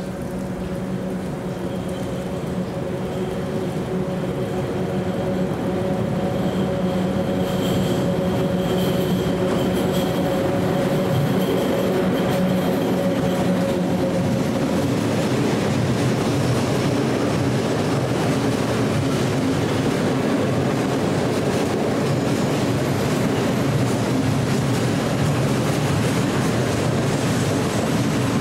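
ET22 electric freight locomotive humming as it approaches and passes, then a train of open freight wagons rolling past with a steady rumble of wheels on rails, louder from about halfway through.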